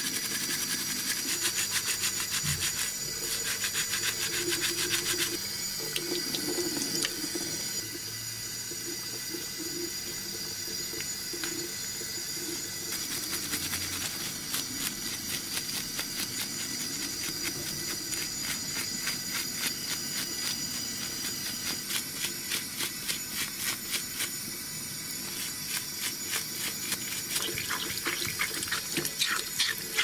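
A toothbrush scrubbing soapy plastic and rubber remote-control parts in quick, rhythmic strokes, with water splashing in a sink.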